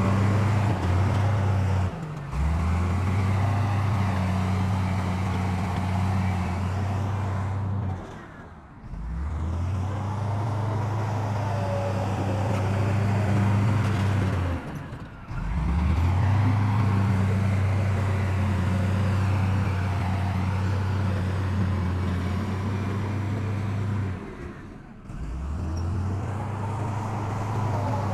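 Heavy diesel engines of earthmoving machinery running steadily with a low hum. The sound drops out briefly about 2, 8, 15 and 25 seconds in.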